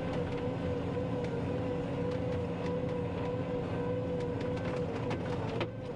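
John Deere 9500 combine driving on the road, heard from inside the cab: a steady engine drone with a whine that wavers slightly in pitch and a few faint rattles over the bumps, dipping briefly near the end.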